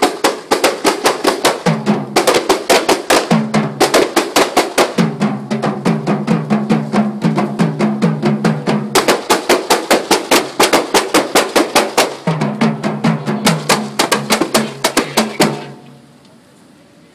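A troupe of kompang (Malay hand frame drums) beaten fast in a dense interlocking rhythm, with deeper tones joining in at times; the drumming stops abruptly about fifteen seconds in.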